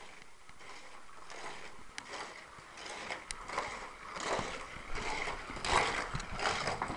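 Hot Wheels Sizzlers toy race car running on its plastic track: a mechanical rattle that swells and fades, growing louder toward the end, with a few sharp clicks.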